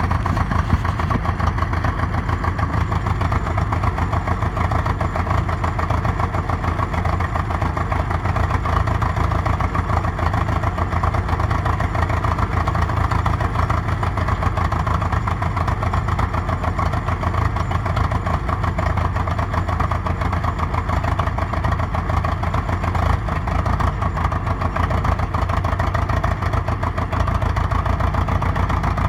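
Engine of a 1947 Caterpillar D7 crawler tractor running steadily with a fast, even beat, early in a cold start at below-freezing temperature.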